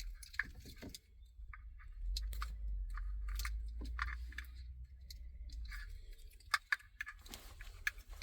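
Plastic wiring-harness connectors and cables being handled: irregular clicks, crinkles and rustles.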